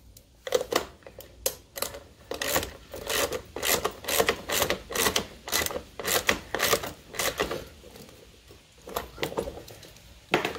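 A ratchet wrench clicking in quick bursts, about two strokes a second, as it tightens the bolt on a lawnmower's front drive wheel. The strokes stop for a moment and then come a few more times near the end.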